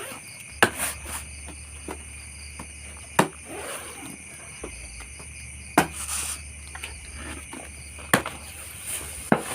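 Steady chirring of crickets, broken about five times by sharp, loud clicks or knocks at irregular intervals, with a couple of softer rustles.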